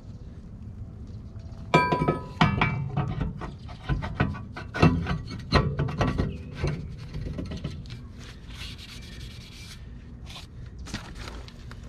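A new steel brake rotor is slid onto a car's rear wheel hub. A ringing metal clank about two seconds in is followed by a few seconds of scraping and knocking as it is worked over the hub, then lighter rubbing as it sits in place.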